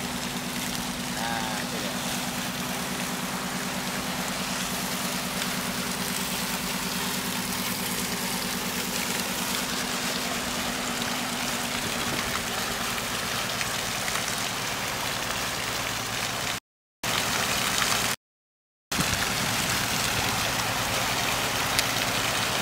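Steady rush of wind and water on the microphone over the low, steady hum of the fishing boat's engine under way. The engine hum fades about halfway through, and the sound cuts out completely twice, briefly, near the end.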